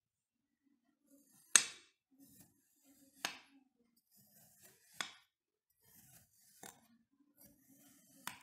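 Metal blade cutting down through kinetic sand: five cuts at an even pace, about one every second and a half. Each is a soft grainy crunch that ends in a sharp tap as the blade meets the board, with the first tap the loudest.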